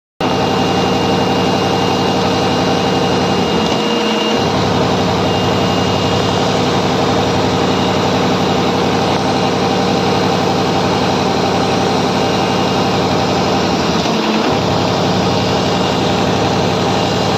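Industrial sewing and perforation machine running steadily, with a fast even rhythm of needle or punch strokes over a steady mechanical whine. Its lower beat drops out briefly twice, about four seconds in and again near fourteen seconds.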